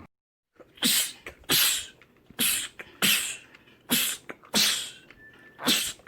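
A man sneezing seven times in quick succession, the sneezes coming in rough pairs.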